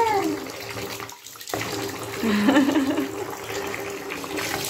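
Water splashing and running in a baby's bath, with a steady hiss that drops away briefly about a second in. A small voice chirps at the start and babbles again about two seconds in.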